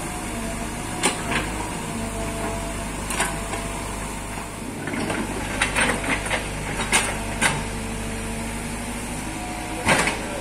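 Mini crawler excavator's diesel engine and hydraulics running steadily, with a thin whine that wavers in pitch, while the bucket digs out the road surface. Several short sharp knocks and scrapes ring out as the bucket strikes soil and stones, most of them bunched in the middle.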